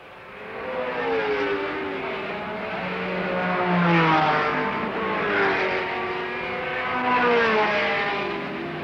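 Racing engines of Porsche 917 sports prototypes at speed, several cars passing one after another. Each engine note swells and glides up and down in pitch as it goes by.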